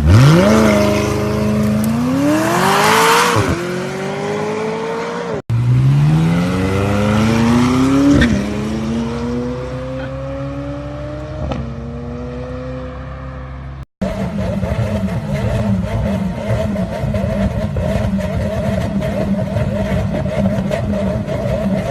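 McLaren 600LT's twin-turbo V8 accelerating hard through the gears, its pitch climbing and then dropping back at each upshift. There are two separate runs, and after a cut about 14 s in the engine runs steadily with a rapid, even throb.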